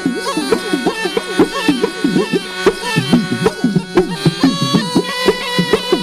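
Snake charmer's pungi (been) playing a reedy, ornamented melody over a steady drone, quick bending runs giving way to longer held notes about halfway through, with a drum keeping a steady beat underneath.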